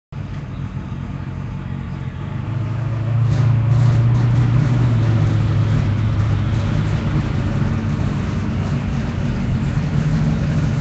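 Engine running with a steady low hum, growing louder about three seconds in and then holding steady.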